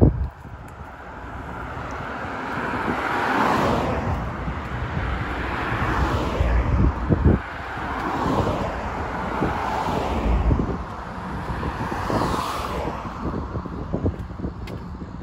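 Cars passing one after another in the lane beside the sidewalk, tyre and engine noise swelling and fading several times, with some wind rumbling on the microphone.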